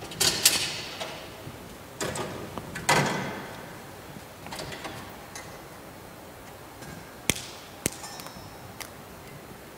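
A few scattered knocks and clinks from things being handled at the altar, one of the later clicks with a short bright ring, over quiet church room tone.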